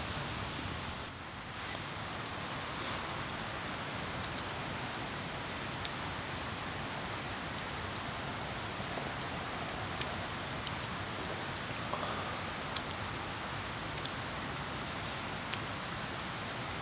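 A steady, even hiss with a few sharp ticks scattered through it, and a brief dip in level about a second in.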